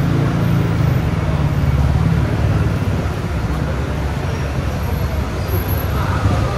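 City street traffic: a vehicle engine running close by with a low hum that fades after about two seconds, over steady road noise.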